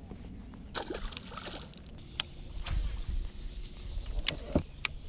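Scattered sharp knocks and clicks from gear being handled in a small fishing boat, over a low rumble, with water sloshing against the hull.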